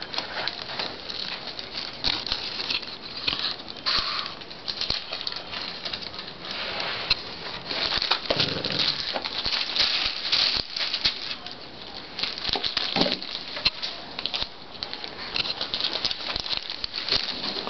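Crinkling and rustling of plastic sheeting and cardboard, with scuffles and small clicks, as a Shih Tzu puppy scrambles about with a ball in its mouth.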